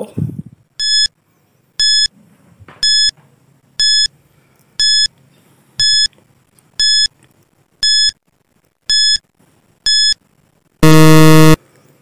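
Countdown timer sound effect: ten short, high beeps, one a second, then a loud, low buzzer for under a second near the end, signalling that the ten seconds are up.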